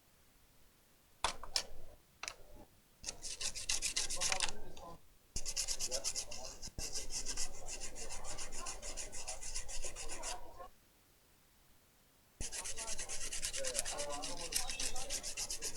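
A brush scrubbing a laptop motherboard to clean it, in rapid back-and-forth scratchy strokes. There is a long spell of scrubbing, a pause of about two seconds near the middle, then more scrubbing.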